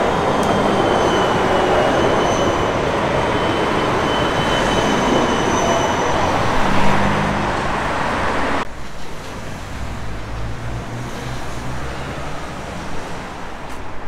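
Electric city tram running past at close range: the rush and rumble of its wheels on the rails, with a thin high whine over it. About nine seconds in the sound cuts abruptly to quieter street noise.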